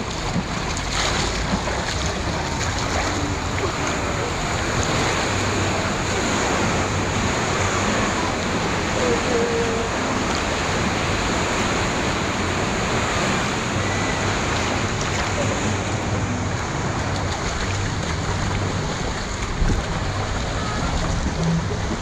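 Steady rush and slosh of lazy-river water moving close to the microphone, an even, unbroken wash of noise, with some wind on the microphone.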